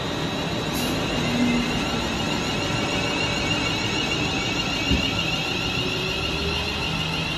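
London Northwestern Railway Class 350 Desiro electric multiple unit running past, its traction equipment giving a steady high whine over wheel and rail noise, with a single knock about five seconds in.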